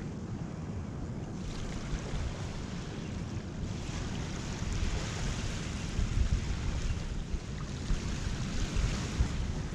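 Surf washing up a sandy beach in hissing swells, with wind buffeting the microphone.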